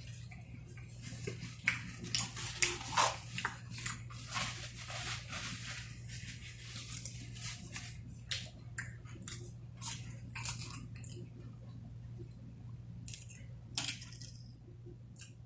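A person biting and chewing food close to the microphone: many short, irregular crackling and smacking mouth noises over a steady low hum.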